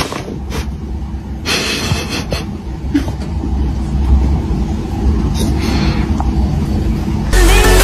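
A steady low rumble with a few brief rustles and clicks; music starts near the end.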